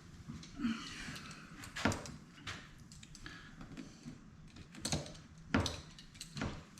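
Handling noise from work on a boat's fuel line and primer bulb: about five sharp clicks and knocks, spaced unevenly a second or more apart.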